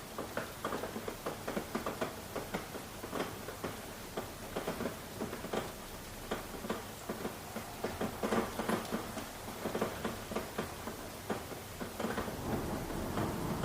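Rain falling, with many irregular drops pattering and ticking on a surface over a steady hiss. It grows louder near the end.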